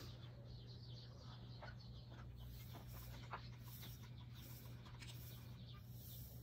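A wooden treadle spinning wheel turning quietly while wool is drafted onto the bobbin: faint scattered clicks and soft scratchy rubbing.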